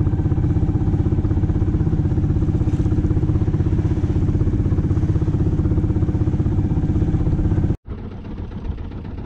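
Small sailboat's engine running steadily under way, a loud, fast-pulsing drone. Near the end it cuts off abruptly and a quieter engine drone follows.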